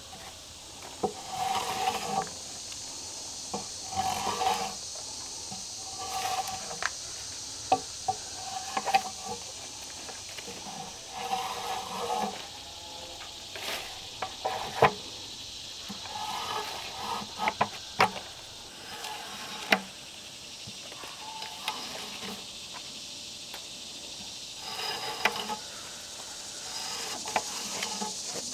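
Drawknife strokes peeling bark from a log, a short scraping stroke every second or two with sharp clicks and knocks between them.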